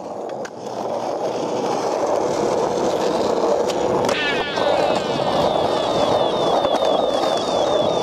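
Skateboard wheels rolling on asphalt with a steady gritty rumble. About halfway through, the board snaps with a sharp pop as it is kicked into a flip trick. A high chirping pattern repeats a few times a second after the pop.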